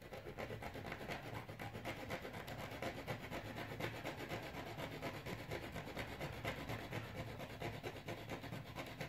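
A small hand tool scraping back and forth in quick, even strokes along the steel rail of old Jouef model railway track, cleaning it down to bare metal to take solder.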